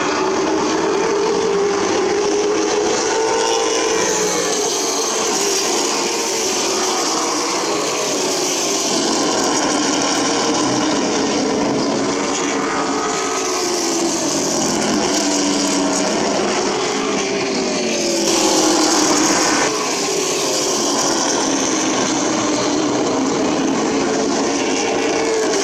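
Short-track stock car engines racing around the oval, their pitch rising and falling again and again as the cars accelerate and back off through the laps. The sound swells briefly about three-quarters of the way through.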